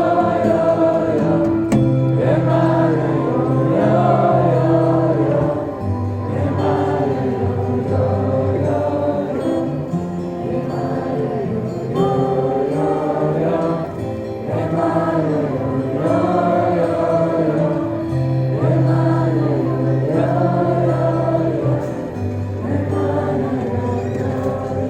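Live band music with wordless chanted vocals over steady held bass notes.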